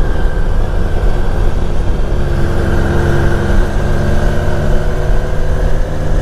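Motorcycle engine running steadily at road speed, its pitch creeping slightly higher, over heavy wind rumble on the microphone.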